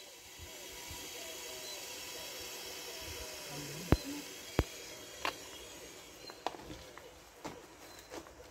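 A few sharp clicks and knocks over a faint steady hiss, from a sprayer tank and its containers being handled. The two loudest knocks come about four seconds in, half a second apart.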